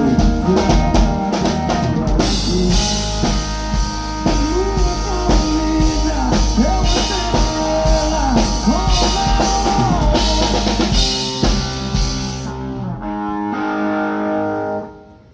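Live band playing an instrumental passage at full volume: drum kit with kick and snare, a steady bass, and a bending lead guitar line. About 13 seconds in the drums stop, leaving held chords that fade near the end.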